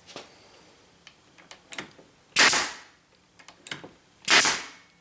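Porter-Cable pneumatic brad nailer firing twice, about two seconds apart: each shot is a sharp crack followed by a short hiss of air. Fainter clicks and knocks come between the shots.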